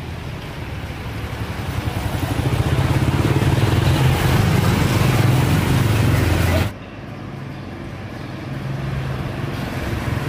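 Motor vehicle engine running, getting louder over the first few seconds; the sound drops suddenly about two thirds of the way in, then builds again.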